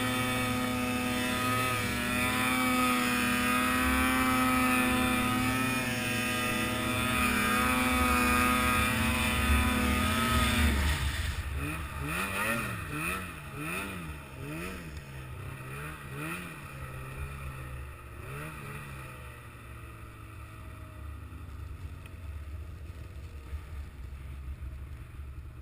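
A vehicle engine running at steady high revs for about ten seconds, then throttling off. It then rises and falls in revs several times in quick succession before settling at a low, steady idle.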